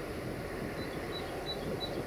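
Steady low rumble of an approaching diesel locomotive, still out of sight around the curve, with a few short high chirps over it in the second half.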